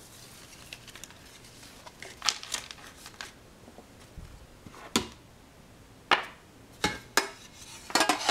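Scattered light knocks and clicks, several seconds apart at first, then a quick cluster of them near the end.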